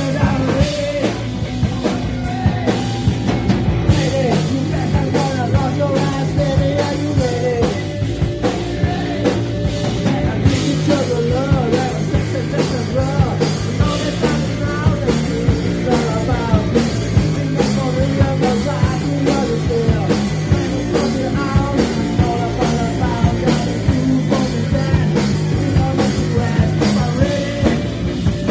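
Live rock band playing a fast punk rock and roll song: drums, electric guitars and a shouted lead vocal, loud and steady throughout.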